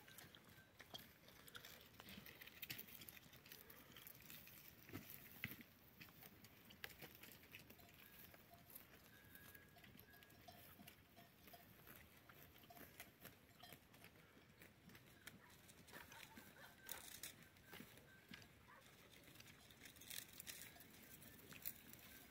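Near silence with faint scattered clicks and rustles from a herd of goats grazing and moving over stony ground.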